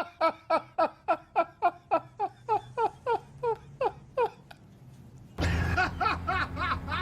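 Hearty laughter in a long run of even 'ha-ha' pulses, about three to four a second, slowing and dropping in pitch as it trails off. About five seconds in, the sound cuts suddenly to a louder stretch with a steady low hum under more snickering.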